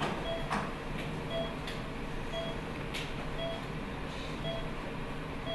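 Operating-room patient monitor beeping steadily about once a second, a short two-pitched beep that follows the heartbeat, over steady room hum. A few faint clicks from surgical instruments are mixed in.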